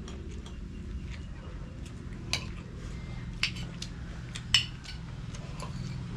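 Spoon and fork clinking and scraping against a plate during a meal, with three sharper clinks about two, three and a half, and four and a half seconds in, over a low steady hum.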